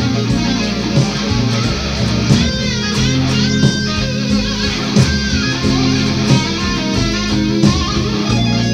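Electric blues lead guitar solo on a Stratocaster-style electric guitar, with bent notes gliding in pitch, played over a backing track of bass and a slow, steady drum beat.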